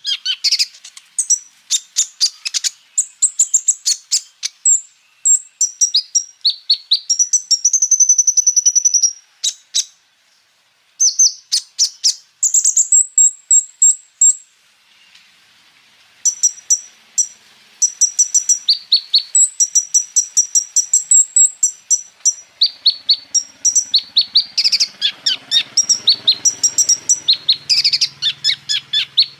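A Van Hasselt's sunbird (kolibri ninja) singing fast runs of high-pitched chirps, rolls and trills, its song mixed with phrases copied from other birds. It breaks off briefly about ten seconds in and again around the middle, then goes on.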